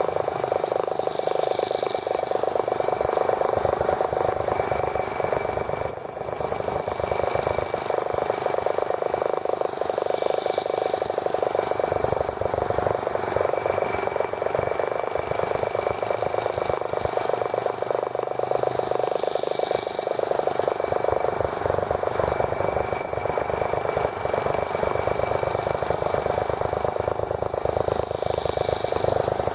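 Small gasoline model engine of a T26 toy tractor running steadily with a rapid, even firing beat and a thin high whine over it. It dips briefly about six seconds in.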